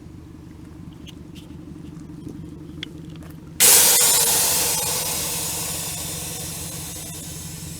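A car engine idling with a low steady hum, then about three and a half seconds in a sudden loud hiss of air suspension letting air out of its bags, fading slowly as the car is aired out to sit low.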